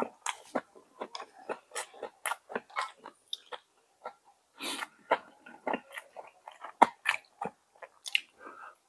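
A person chewing a mouthful of jjageuli close to the microphone: an irregular run of short, wet chews and lip smacks, with one longer noisy burst near the middle.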